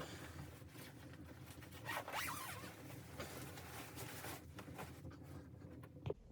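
Continuous scratchy rustling and drawing noise of handled gear, loudest about two seconds in. It ends with a sharp click about six seconds in.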